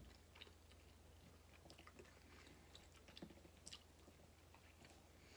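Faint chewing of a mouthful of macaroni and cheese with Dorito bits, with scattered small mouth clicks over a steady low hum.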